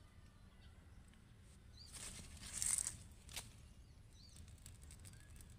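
Wind rumbling on the microphone, with a brief rustle about two seconds in and a single sharp click just after.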